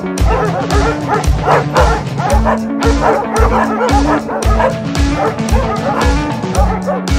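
Hunting hounds barking and yelping, giving voice on the trail of a wild boar, over background music with a steady beat of about two drum hits a second.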